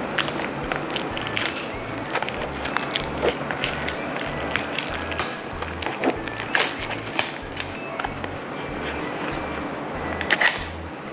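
Background music with a repeating bass line, over the crackle, rustle and clicks of a small cardboard toy-car box being opened by hand, its flaps pulled open.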